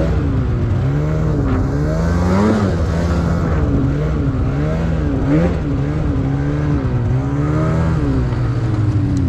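Snowmobile engine revving up and down repeatedly, its pitch rising and falling several times, as the sled rides through deep powder snow.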